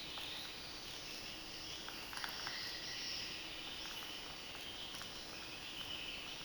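Faint steady chirring of crickets or other insects, with a few light clicks about two seconds in and again near five seconds as the hammer drill's chuck is tightened on the bit with its key.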